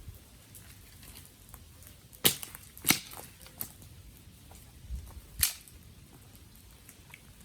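Dry wood cracking sharply a handful of times, three loud snaps standing out, the second about half a second after the first and the third about three seconds later, over a faint steady crackle.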